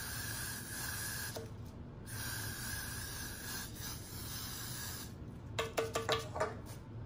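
Aerosol can of hairspray sprayed in two long hisses of about a second and a half each, then a quick run of short clicks near the end.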